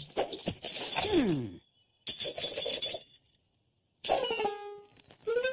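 Cartoon sound effects of junk being rummaged through in a metal trash can: clattering and clinking in short spells with brief silences between them, a falling glide about a second in, and a sudden jangle about four seconds in.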